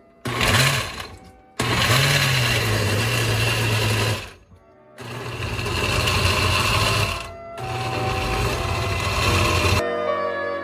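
Countertop blender grinding chunks of fresh coconut in water to make coconut milk, run in four bursts of a few seconds each. The motor whine rises each time it starts, and it stops between runs.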